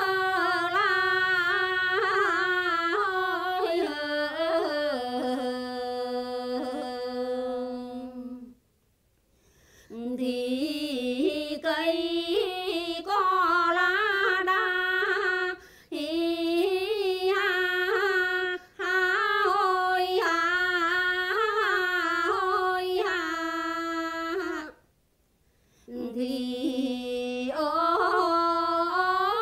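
A woman singing a Quan họ folk song unaccompanied, with long held notes that waver in ornaments. The phrases break twice for breath.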